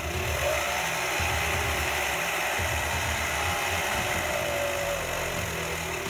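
Homemade electric outboard, with two 1800 W go-kart electric motors driving the outboard's leg through a sprocket, running with the propeller spinning in air on a gearing test. A motor whine climbs about half a second in, holds steady, then drops in pitch about five seconds in, over a steady mechanical clatter.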